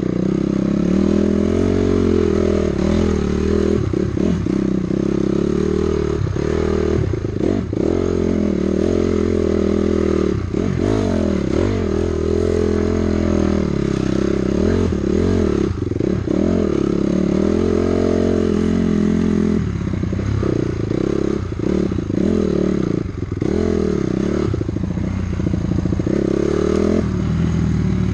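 Two-stroke dirt bike engine revving up and down with the throttle while being ridden over rough trail, with rattling from the bike. For several seconds near the end the engine note drops and turns choppier as the throttle eases off.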